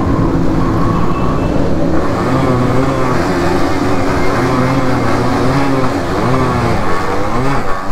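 Two-stroke Yamaha RX single-cylinder motorcycle engine under way, heard from the rider's seat, its pitch rising and falling as the throttle is worked, with a few quick revs about six to seven and a half seconds in.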